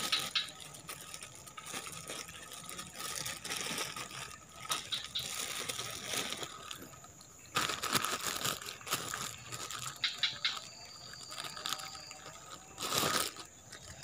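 Handling noise: a plastic bag crinkling and rustling, then irregular rustling of leaves and brush with scattered sharp clicks, and a louder rustle near the end.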